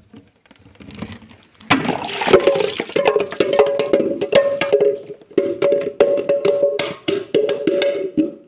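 Dense, irregular crunching and cracking as something crunchy is crushed, starting about two seconds in, over a steady humming tone.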